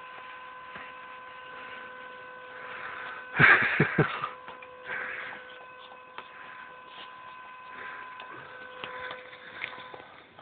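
A steady hum with faint scattered rustles, broken about three and a half seconds in by a loud burst of thumps and rustling.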